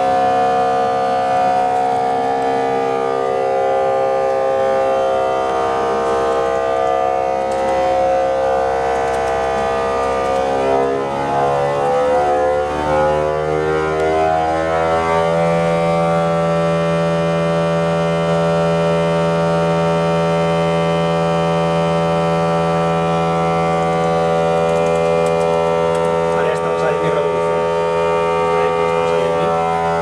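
Honda RC213V MotoGP V4 engine running on a test-bench dynamometer, holding a steady high speed. About a third of the way in it climbs to a higher steady pitch. It sounds a little muffled through the test cell's double doors.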